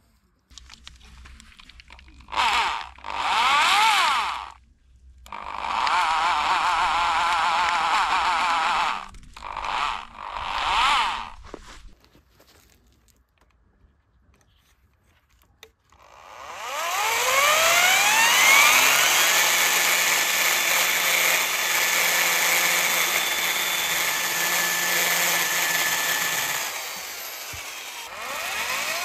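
Electric drill driving a mini chain-saw attachment: several short bursts of the motor and chain spinning up with a rising whine, a pause, then one long run that winds up again with rising whines, dips briefly near the end and picks up again.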